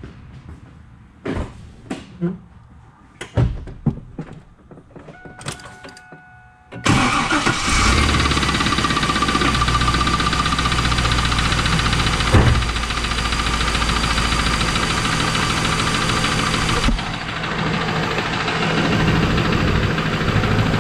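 A few clunks and clicks and a brief steady tone, then the 2001 Pontiac Trans Am's LS1 5.7-litre V8 cranks and catches about seven seconds in and runs at idle with the knock that the owner is trying to quiet with thick race oil. The engine gets slightly quieter near the end.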